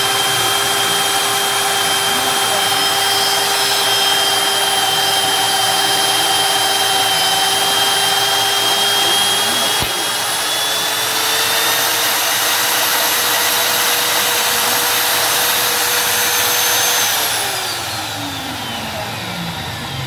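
Automatic magnetic drill motor running steadily with a whine while a stack annular cutter bores through stacked mild steel plates. Midway the whine rises slightly in pitch, and near the end it falls away steadily as the motor runs down.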